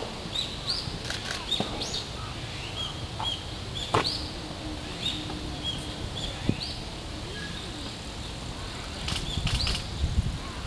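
Japanese sparrowhawk nestlings begging while being fed: short, thin, high chirps, many rising sharply in pitch, repeating about once or twice a second, with scattered faint ticks and a low rumble underneath.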